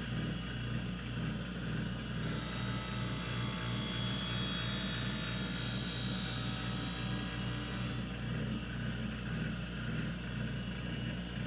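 Skate-sharpening machine's hollow-grinding wheel running with a steady motor hum. A figure-skate blade is drawn along the wheel in one pass, giving a high grinding hiss from about two seconds in until about eight seconds in, as a new hollow is cut into the blade.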